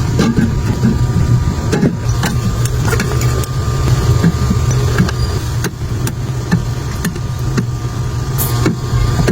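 Items being handled and set down during a mini-fridge restock: a string of irregular clicks and taps over a steady low hum.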